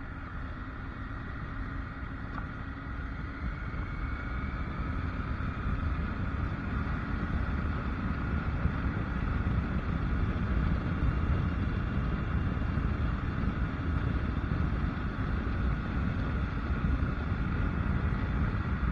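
Triumph Tiger three-cylinder motorcycle engine running under way on a gravel road, with road and wind noise, getting louder over the first several seconds as the bike speeds up, then holding steady.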